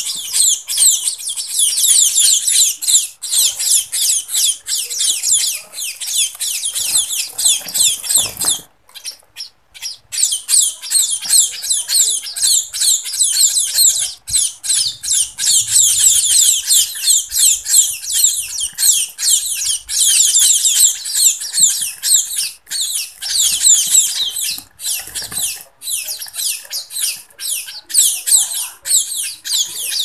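A group of munia (emprit) fledglings giving rapid, high-pitched begging cheeps almost nonstop while being hand-fed, with one short pause about nine seconds in.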